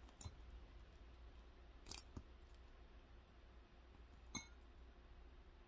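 Faint clicks and small metallic clinks of wire ring splints being worked off the fingers, a few separate ticks with the loudest about four seconds in.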